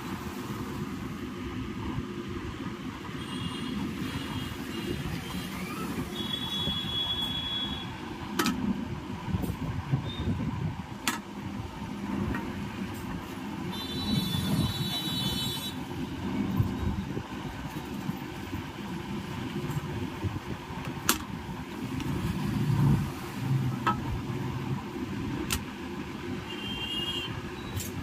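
Road traffic noise: a steady low rumble of passing vehicles, with short high-pitched beeps now and then and a few sharp clicks.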